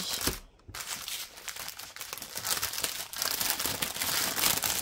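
Clear plastic packaging bags crinkling as they are handled, in an irregular run of rustling with a brief pause about half a second in.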